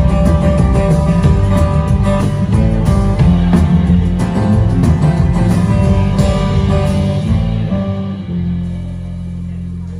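Live band playing the instrumental close of a song: acoustic guitar strumming over upright bass and drums. About eight seconds in the playing drops away, leaving a low held note ringing out.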